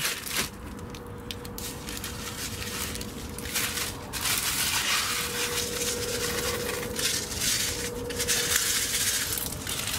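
Calcified seaweed granules poured from a plastic bag into a bucket of compost: a steady grainy rustle of the bag and the pouring granules, heavier from about three and a half seconds in.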